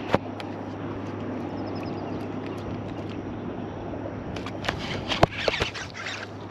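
Steady background hiss. From about four seconds in comes a flurry of short clicks and knocks from the baitcasting rod and reel, the sharpest a little after five seconds, as a fish takes the topwater lure and the rod is swept up to set the hook.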